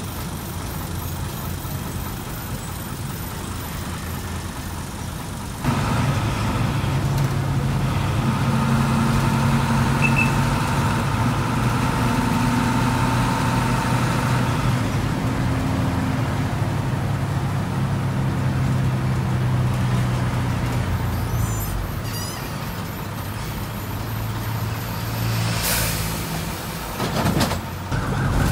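Hino AK76 city bus's diesel engine running as the bus drives, heard from inside the cabin with road and traffic noise through the open windows; it gets suddenly louder about six seconds in and holds a steady engine drone. A short burst of noise comes near the end.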